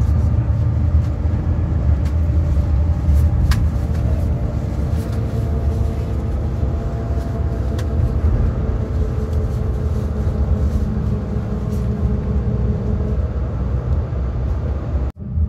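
Inside a moving bus: the steady low rumble of the engine and tyres on the road, with a faint whine through the middle and a few small clicks and rattles. The sound cuts out for a split second near the end.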